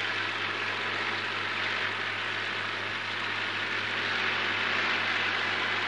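Freight train wagons rolling past on the track: a steady rushing rumble of wheels on rails, with a low hum under it, swelling slightly near the end.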